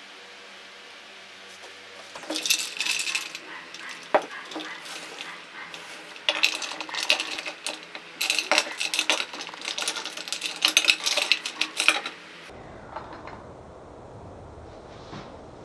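Ice cubes clinking and knocking against a glass container and a glass jar as the jar is pushed down among them in ice water. The clatter comes in bursts and stops about three seconds before the end.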